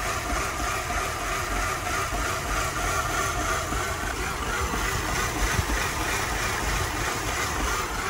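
2005 Mercedes CLK 320's 3.2-litre V6 idling roughly under the open hood, held in gear against the parking brake, with a slight knocking. This is the rough idle that rocks the whole car at a stop.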